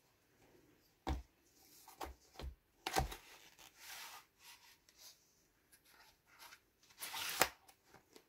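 Cardstock being handled and slid on a desktop by hand: a few light knocks, then papery rubbing and rustling about three seconds in and again near the end.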